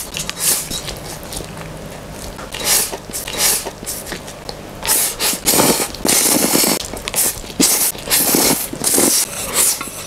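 Close-miked mukbang slurping of instant noodles: repeated wet sucking slurps as strands are drawn into the mouth, with chewing between, the bursts coming thicker and louder in the second half.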